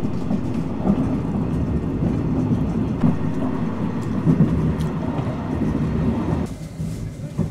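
Passenger train running along the track, heard on board: a steady rolling, rattling noise that quietens about six and a half seconds in.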